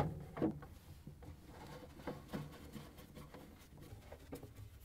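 A sharp click, then faint scattered clicks and light taps of a nut driver and the plastic air duct being handled while the duct is screwed into place in a refrigerator's freezer compartment.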